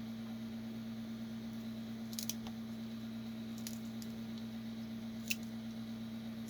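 A few short plastic clicks and cracks as a 3D-printed plastic hinge is twisted and its internal support material snaps loose at the pivot: a small cluster about two seconds in, and a sharper single crack near the end, over a steady low hum.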